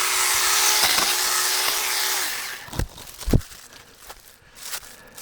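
Saker handheld battery-powered mini chainsaw running with a steady high whine, then released about two seconds in and winding down. Two dull thumps follow.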